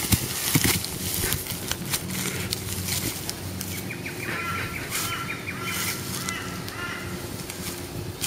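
A couple of sharp knocks near the start as a man lurches against a tree, then scuffing and crunching footsteps and rustling in dry leaf litter. A bird calls in a run of short, repeated chirps through the middle.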